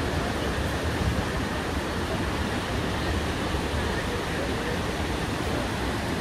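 Steady rush of water from Iguazu Falls: an even, unbroken noise.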